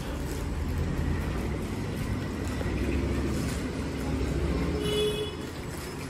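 Low rumble of road traffic, rising and falling, with a brief steady tone about five seconds in.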